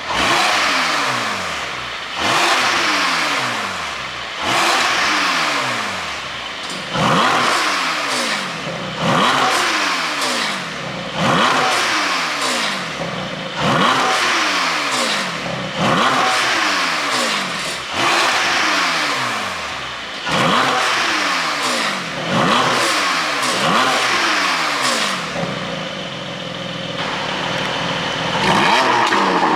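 Porsche 718 Boxster GTS 4.0's flat-six engine being blipped again and again from idle, about one rev every two seconds. Each blip rises sharply and then falls back. Near the end there is a few-second stretch of idle before a final rev.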